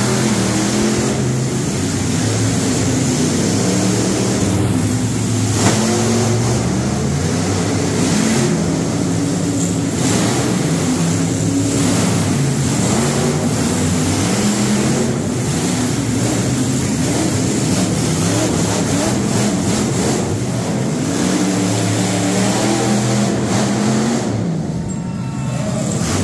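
Monster truck engines revving hard and continuously, their pitch rising and falling as the trucks run, with a single sharp bang about six seconds in.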